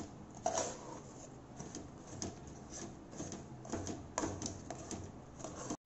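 A metal spoon stirring and scraping thick, sticky chana dal and jaggery filling against a metal pan, irregular soft scrapes, squelches and small clicks. It cuts off suddenly near the end.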